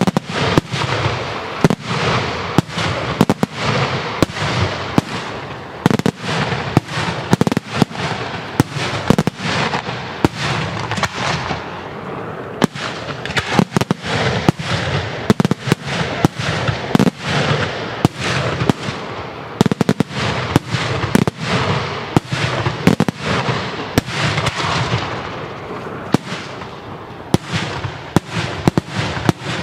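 Daytime fireworks display: aerial shells bursting high in the sky in a rapid, unbroken series of loud bangs, about one to two a second, with continuous noise between them.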